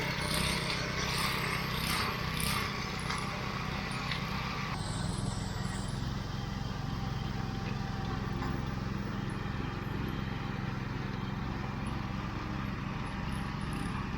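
Steady low rumble of a running vehicle, with a few clicks and rustles in the first few seconds.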